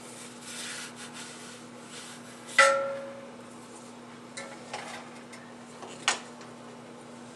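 Kitchenware being handled: rubbing and rustling at first, then a sharp ringing clink about two and a half seconds in, a few lighter knocks, and another sharp tap near the end, over a steady low hum.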